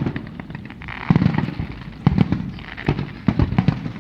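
Fireworks display: aerial shells bursting in a rapid, irregular run of bangs.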